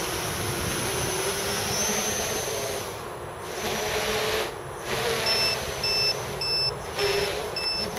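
Small racing quadcopter's motors and propellers whirring in flight, the pitch wandering up and down with the throttle. From about five seconds in, a high electronic beep repeats about twice a second.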